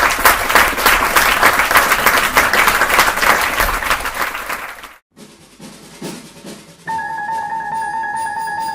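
Loud percussion music: a fast, dense drum roll for about five seconds that cuts off suddenly. After a short quiet stretch, a steady held note starts near the end.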